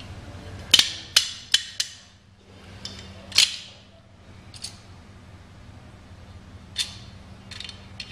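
Sharp metal clicks and clinks of snap ring pliers and a steel snap ring being worked onto a pump shaft in its bearing housing: four quick clicks in the first two seconds, a louder one a little later, then scattered single clicks, over a faint low steady hum.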